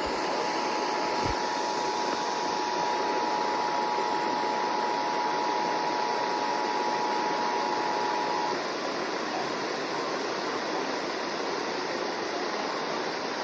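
Emergency Alert System attention signal: the steady two-tone alert sounds for about eight and a half seconds over a constant hiss, then cuts off, leaving the hiss alone.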